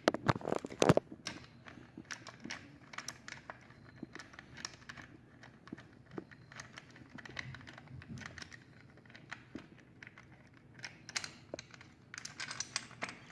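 Light, irregular metallic clicks and taps of a hand tool and bolt being worked loose on a motorcycle's engine side cover, with a few sharper knocks in the first second and again near the end.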